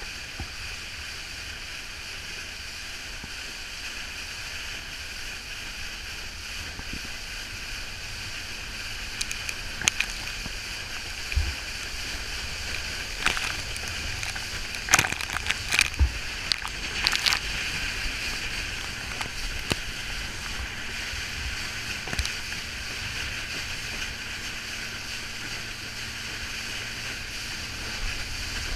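Water rushing and churning past a moving boat's hull, with a cluster of sharp slaps and splashes about ten to seventeen seconds in.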